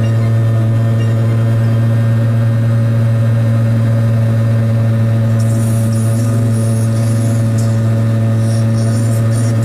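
Piaggio Ape 50's small two-stroke single-cylinder engine running at a steady speed under way. A patchy high hiss joins about halfway through.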